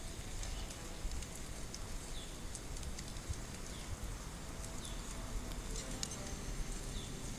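Outdoor ambience with a low wind rumble on the microphone and a few light clicks from handling the kayak's sail mount fittings. A bird's short high chirp, falling in pitch, repeats about every second and a half.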